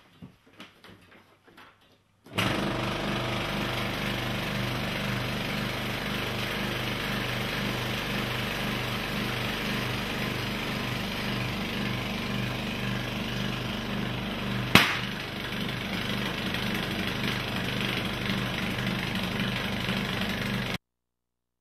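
A small single-cylinder piston air compressor starts up and runs steadily with a regular low pulse, pumping air into a rubber glove. Partway through, the inflated glove bursts with one sharp bang, and the compressor keeps running until it stops suddenly near the end.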